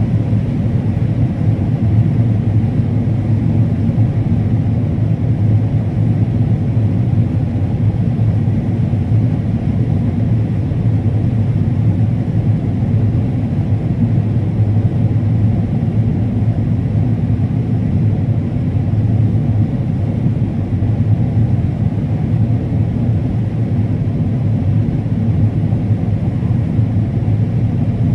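Combine harvester running steadily while harvesting corn: a loud, even, low drone of the engine and header machinery that does not change.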